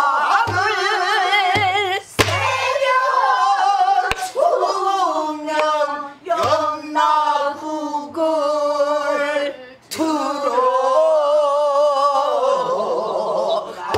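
A woman singing pansori in a full, heavily wavering voice, accompanying herself on a buk barrel drum: a few low drum beats, mostly in the first half, and several sharp clicks of the stick on the drum's wooden rim.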